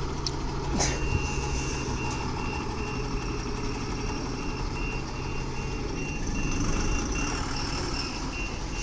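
A truck's reversing alarm beeping about twice a second, starting about a second in after a sharp click, over the low running of the truck's diesel engine as it manoeuvres.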